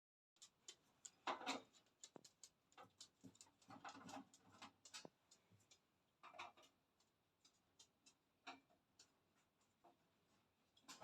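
Faint, irregular clicks, taps and short scrapes of hands handling a mid-tower PC case's panels and screws, with a few louder handling clusters.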